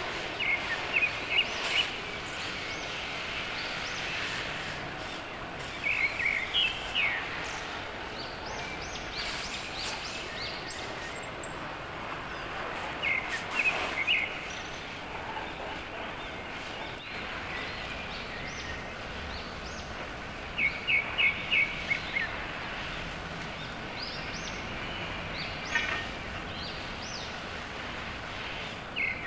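Small birds chirping in short bursts of several quick chirps, every few seconds, over a steady hiss.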